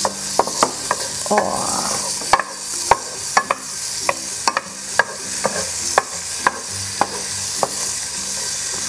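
Diced Spam sizzling in oil in a nonstick frying pan while a wooden spatula stirs it, knocking and scraping against the pan in irregular taps about two a second.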